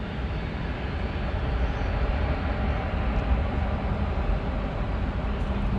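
Distant low roar of a Boeing 737-800's CFM56-7B jet engines at reverse thrust during the landing roll, steady and slowly growing louder.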